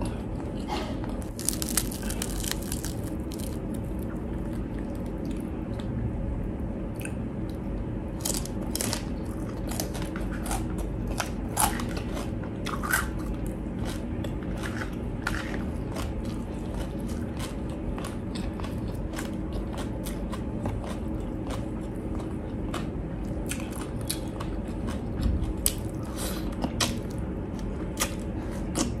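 Close-up crunching and chewing of crispy deep-fried pork. Irregular sharp crunches of crackling skin come one after another, thickest in the middle of the stretch, between quieter chewing.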